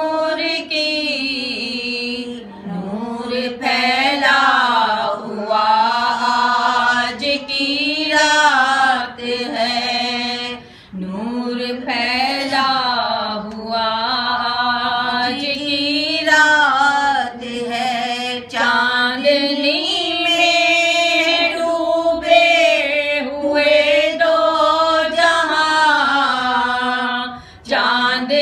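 Women's voices chanting an Urdu naat unaccompanied: long, drawn-out melodic lines that waver in pitch, broken by brief pauses for breath.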